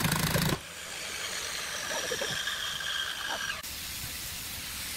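Cordless drill-driver running as it drives a screw into a hardwood block, stopping abruptly about half a second in. A steady hiss follows.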